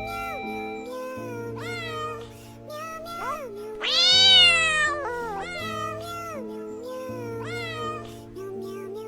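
Cat meowing over and over, short rising-and-falling meows, the loudest and longest about four seconds in, over steady background music.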